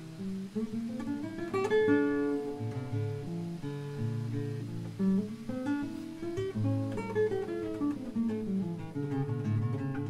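Background music: a solo acoustic guitar playing a flowing line of plucked notes with chords struck now and then.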